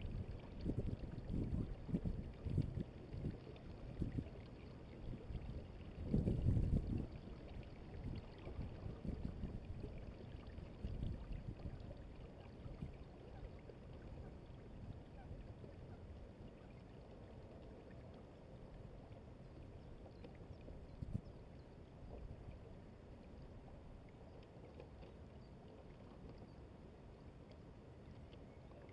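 Water washing along the hull of a Hobie Adventure Island sailing kayak under way, with wind buffeting the microphone. The wind gusts are strongest in the first several seconds, loudest about six seconds in, then it settles into a steady soft wash.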